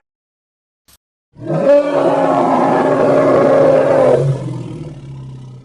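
A polar elephant creature's roar sound effect: one long, loud call starting about a second and a half in, holding a steady low pitch, then trailing off near the end.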